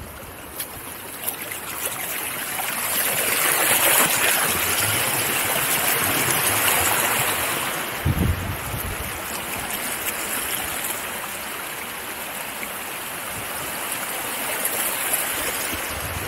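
Small creek rushing and splashing over little cascades close by, swelling louder a few seconds in and then easing off.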